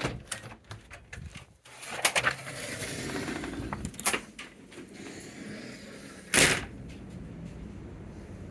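A door being unlatched and opened, with clicks and knocks, then a short loud bang about six seconds in. There is no dog barking.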